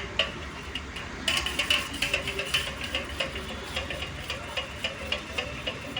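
A spoon stirring quickly in a bowl, whisking raw egg with fish-oil and vitamin E capsule liquid, with rapid light clicks and scrapes of the spoon against the bowl.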